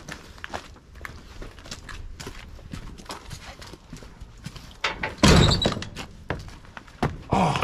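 Scattered metal clanks and knocks from a truck's receiver-mounted winch being unhooked and worked loose, with one heavy clunk about five seconds in.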